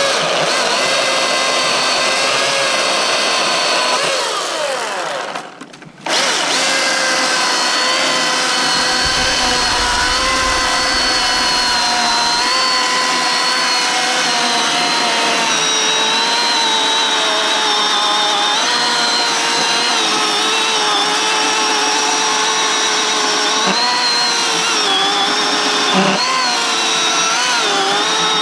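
Milwaukee M18 Fuel cordless chainsaw, its brushless electric motor whining steadily as the chain cuts through a log. About four seconds in it winds down with falling pitch, then starts again sharply near six seconds and runs on, the pitch sagging briefly under load near the end.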